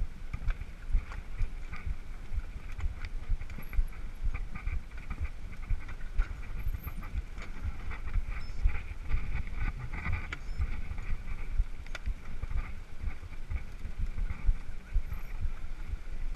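Mountain bike rolling slowly over grass. The handlebar-mounted camera picks up a steady low rumble and irregular knocks and rattles from the bike, with an occasional sharper click.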